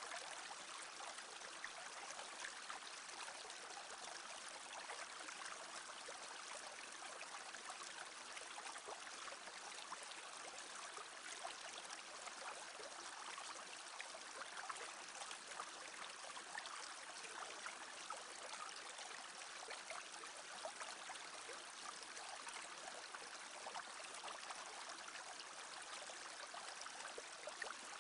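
A small brook babbling steadily, with little trickles and splashes running through it.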